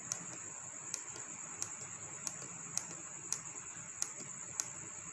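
A small tactile push button clicked about eight times in quick succession, each press a sharp click, toggling an LED on and off. A steady high-pitched whine runs underneath.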